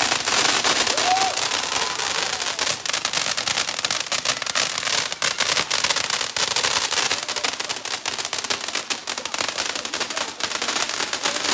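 Fireworks crackling: a dense, unbroken crackle of many small sharp pops over a hiss.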